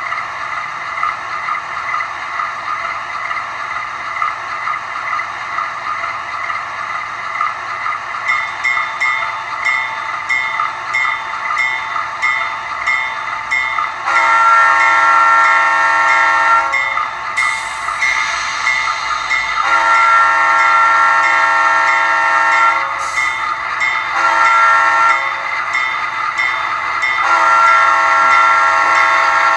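Sound decoder of an HO-scale Conrail GE B36-7 model diesel, heard through its small onboard speaker. The diesel engine runs steadily, then the horn sounds the grade-crossing signal about halfway in: long, long, short, long.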